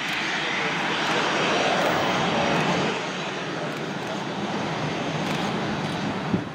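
Boeing 737-400's CFM56 turbofan engines running as the airliner rolls along the runway: a steady jet rush and hiss, louder for the first three seconds and then easing a little. A short knock near the end.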